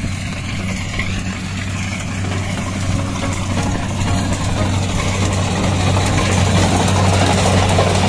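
Rice combine harvester's engine running steadily with a low drone, growing louder as the machine comes closer and its reel and cutting header work through standing rice.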